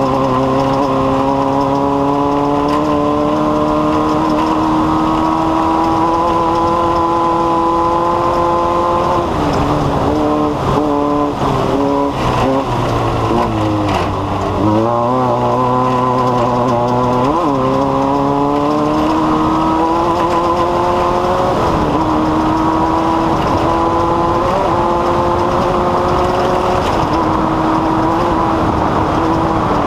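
Race car engine running at speed, its pitch climbing slowly and steadily, then wavering and dropping for several seconds about a third of the way in before climbing again, with shorter dips later on.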